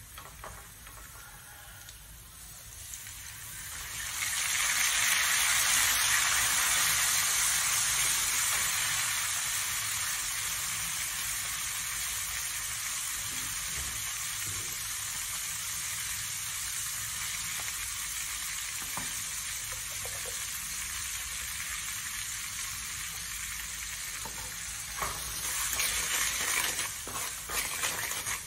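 Minced garlic sizzling in hot oil in a frying pan. The sizzle rises sharply about four seconds in and slowly eases off, and near the end a wooden spatula scrapes and taps the pan as the garlic is stirred.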